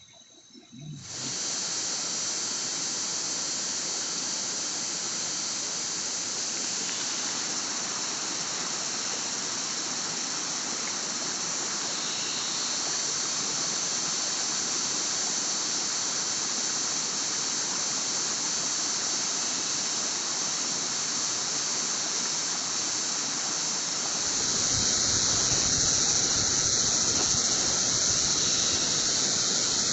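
Steady rushing water of a mountain stream or waterfall, starting suddenly about a second in, with a high hiss on top. It grows louder and fuller in the low end near the end.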